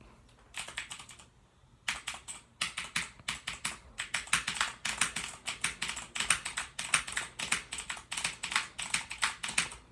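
Razer mechanical keyboard being typed on: a short burst of keystrokes, a brief pause, then a fast, continuous run of key clicks.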